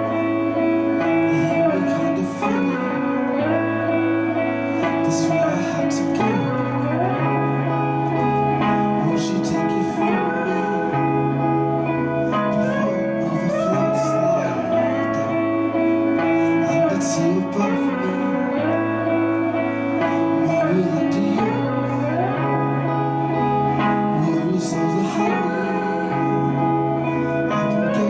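Psychedelic music played live: a low bass pattern shifting every couple of seconds and repeating throughout, under sustained instrumental lines that glide in pitch.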